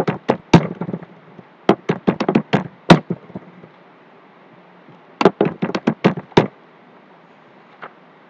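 Computer keyboard typing: three quick runs of key clicks separated by short pauses, with one last faint keystroke near the end.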